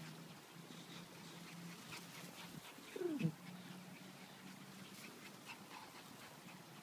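Small dog giving one short whine that falls in pitch, about three seconds in, during rough play with another dog. A faint steady low hum runs beneath.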